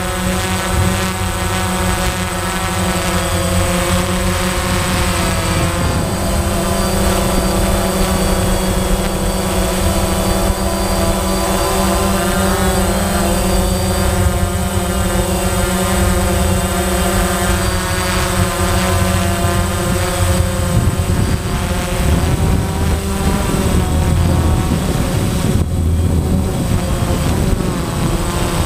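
DJI Phantom quadcopter's motors and propellers, heard from the onboard GoPro in flight. They make a steady whine of several tones that shift in pitch as the throttle changes, with a step about six seconds in, over a rumble of prop wash.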